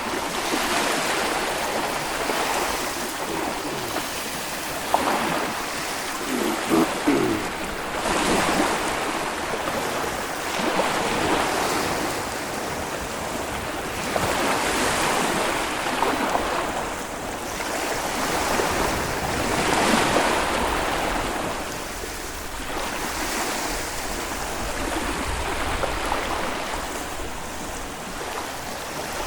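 Small Baltic Sea waves breaking and washing on a sandy beach, a steady surf that swells and eases every few seconds. A few brief, sharper sounds stand out about a fifth of the way in.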